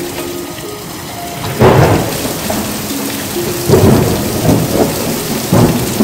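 Heavy rain falling steadily, with three loud bursts of thunder about two seconds apart.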